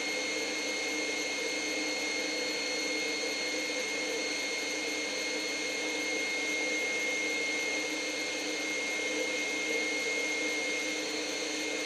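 Electric stand mixer running steadily with its whisk, a constant whir with a high whine, as it whips hollandaise sauce while hot butter is poured in.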